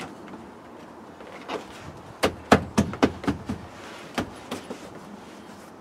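A quick run of sharp knocks and taps, most of them bunched in the middle, from the rubber door seal being pushed and thumped back onto the body flange over the plastic B-pillar trim.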